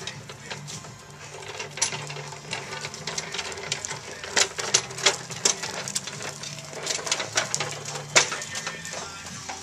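Oliver 1850 pedal tractor being pushed over cracked concrete, its wheels and body rattling with a run of irregular clicks and knocks.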